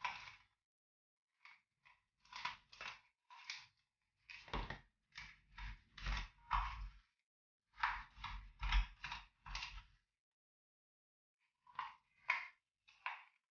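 A small spatula stirring and scraping a gritty sugar, honey and olive oil scrub in a plastic tub: quick, irregular scraping strokes, some with dull low knocks. There is a pause of almost two seconds near the end before a few more strokes.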